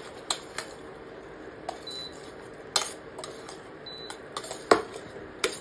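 Metal spoon clinking and scraping against a stainless steel pan while manchurian balls are stirred into their sauce. The knocks are irregular, about nine of them, and the loudest comes a little before the end.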